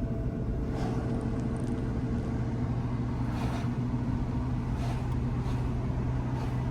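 A car driving at a steady speed: a steady low engine and road hum with faint swells of road noise.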